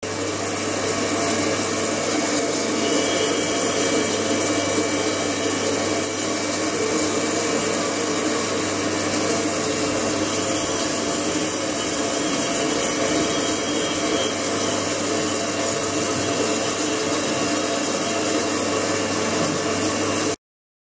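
Ultrasonic tank running, the water cavitating under the ultrasound: a steady, harsh hiss with a low hum underneath. It cuts off suddenly near the end.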